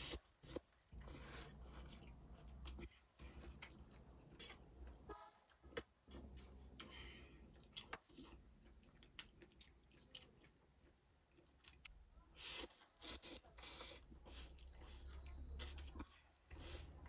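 Eating sounds up close: spicy instant noodles slurped off a fork and chewed, in repeated short wet bursts, with a cluster of loud slurps in the last few seconds. A steady high-pitched drone, like insects, runs behind.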